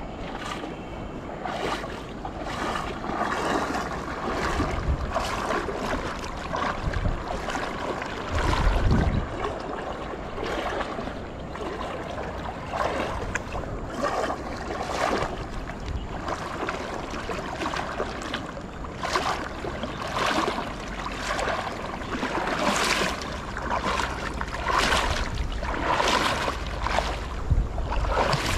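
Wind buffeting the microphone over shallow river water, with irregular small splashes and knocks throughout and heavier low gusts about eight seconds in and near the end.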